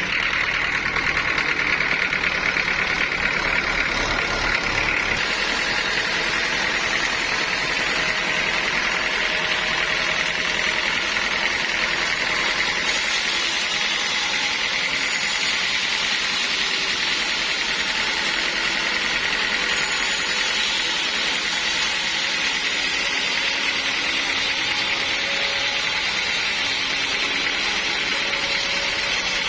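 Sawmill saw running through a large log: a steady, unbroken machine noise.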